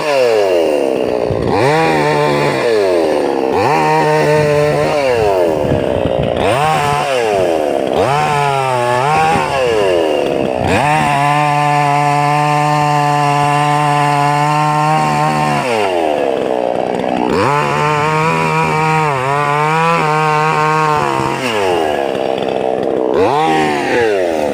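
Two-stroke chainsaw engine at high speed, revved up and let fall back again and again. The pitch dips and climbs every couple of seconds, with longer steady full-throttle stretches a little before the middle and again later on.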